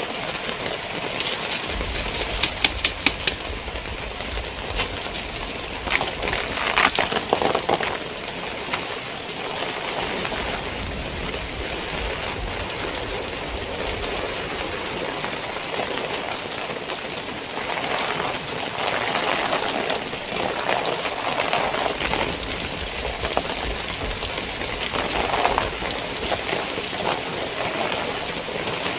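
Heavy rain falling on a tent, a steady rush of noise. A few sharp clicks and rustles of handling come through about two to three seconds in and again around seven seconds.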